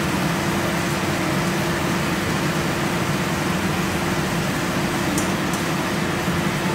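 Kitchen range hood exhaust fan running steadily, a constant whoosh of air with a low motor hum. A few faint light clicks about five seconds in.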